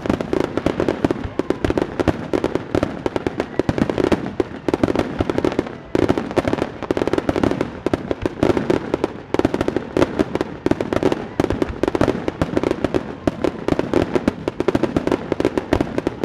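Aerial fireworks display going off: a dense, unbroken run of rapid bangs and crackles, some of them super loud.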